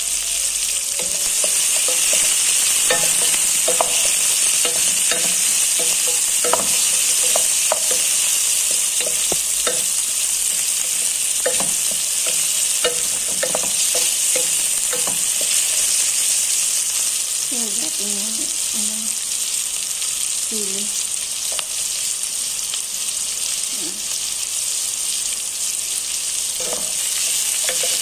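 Onion, garlic, ginger and chili sautéing in hot oil in a metal pot, a steady sizzle. A wooden spatula stirs through it, scraping and knocking against the pot with scattered short clicks.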